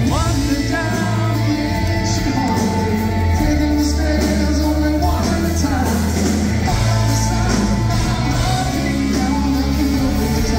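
Live rock band playing a song, a lead singer singing over electric guitars, keyboards, bass and drums, heard from the audience in a large hall.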